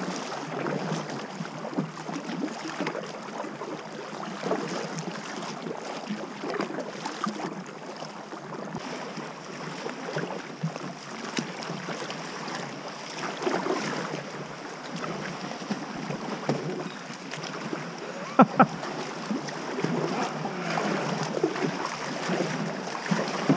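Sea water splashing and lapping around a sea kayak as it is paddled, with paddle blades dipping. A brief double knock about three-quarters of the way through.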